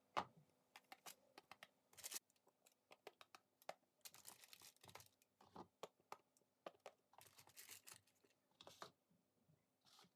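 Faint, scattered light clicks and crinkles of parchment paper as long red peppers are handled and laid on a lined baking tray.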